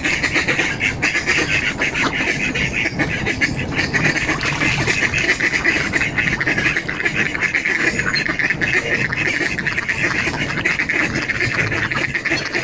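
Mallard ducks quacking continuously, many calls overlapping.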